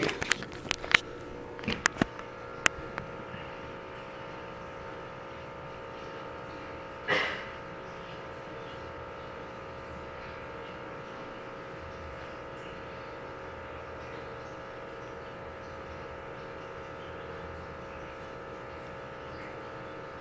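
Steady background hum of room tone, with a few faint clicks in the first three seconds and one short noise about seven seconds in.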